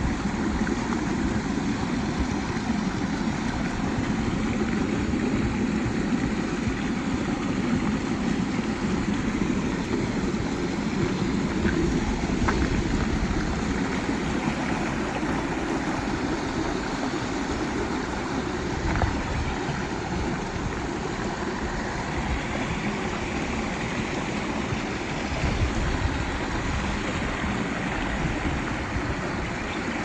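Mountain stream rushing steadily over granite boulders, water splashing through small cascades between the rocks.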